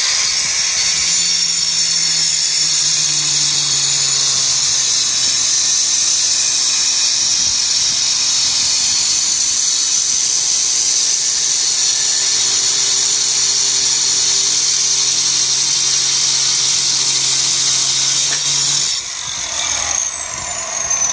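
Stone cutter with a 4-inch tungsten carbide blade cutting dry through a white jade-like stone: a loud, steady high-pitched grinding whine. About 19 seconds in the cutter is switched off and winds down with a falling whine.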